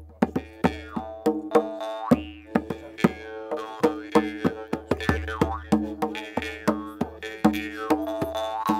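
Kyrgyz jaw harp (temir komuz) playing a buzzing drone with a shifting overtone melody, breaking off briefly a few times, while a frame drum is beaten by hand in a steady rhythm of about three strikes a second.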